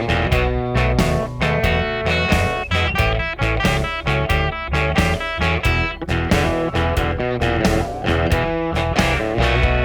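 Background music: an electric guitar piece, bluesy in feel, strummed over a steady beat.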